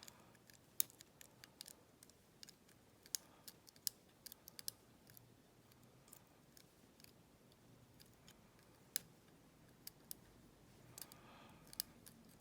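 Faint, irregular small clicks and ticks of a lever-lock pick and tensioner working the levers inside a small all-brass four-lever lock, with sharper clicks about a second in and again around nine seconds. The lock is still being picked, with one lever resisting.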